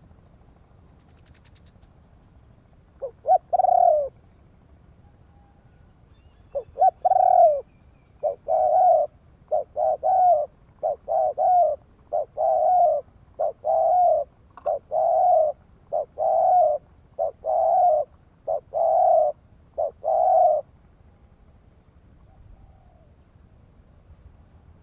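Spotted dove cooing: a run of about a dozen repeated coos, each a short pickup note followed by a longer coo, about one a second, which stops about 20 seconds in.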